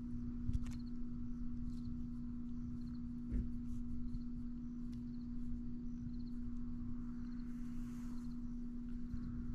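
Wind buffeting the microphone as a fluctuating low rumble, over a steady low hum, with faint, evenly repeated high insect chirps and a few light clicks.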